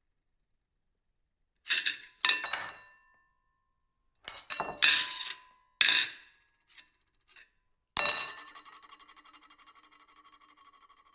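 Ceramic plate clattering against a hard surface: five sharp knocks with brief ringing, two faint taps, then a loud clatter about eight seconds in, followed by a fast rattling ring that slowly fades.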